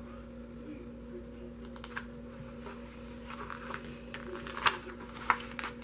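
A CD album and its photobook being handled: soft paper rustling as pages turn, with a few sharp taps or clicks, two of them louder near the end, over a steady low hum.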